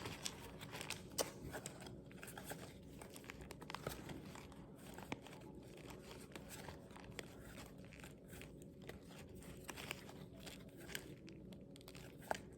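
Faint crinkling and rustling of a trading-card pack wrapper being torn open, and cards being handled, with scattered soft clicks.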